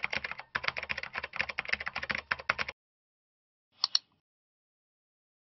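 Computer keyboard typing sound effect: a rapid run of key clicks that stops after under three seconds, followed about a second later by a quick double mouse click.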